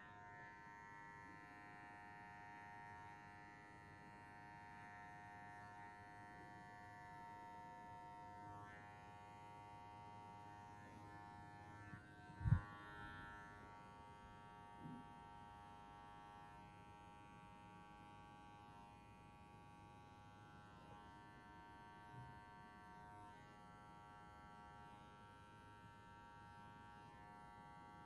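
Electric hair clippers running with a faint, steady buzz as they cut up the back of the neck. One short low thump about halfway through.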